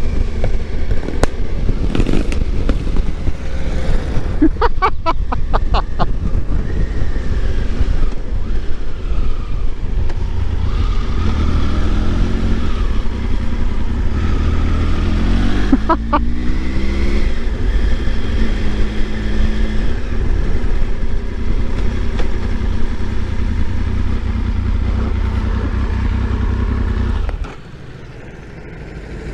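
Triumph Tiger 955i's three-cylinder engine running at road speed with wind noise. The engine note rises in pitch a few times midway, there is a quick run of clicks about five seconds in, and the sound drops away sharply near the end.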